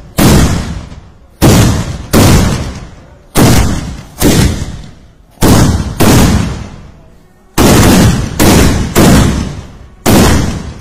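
A row of kathina, small gunpowder-packed iron mortars set in the sand, going off one after another as they are lit in turn. There are about eleven loud, sharp bangs, roughly one a second and sometimes in quick pairs, each dying away over about a second.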